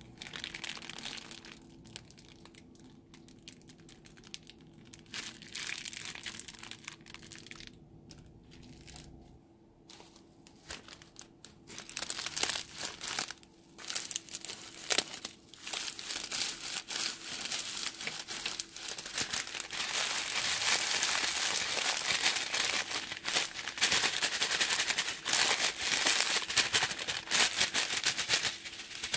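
A thin plastic bag of polystyrene foam beads crinkling and rustling as it is handled and snipped open with scissors, then a dense, steady hiss of the beads pouring out of the bag into a glass bowl. The first several seconds are quieter, with only a few soft clicks.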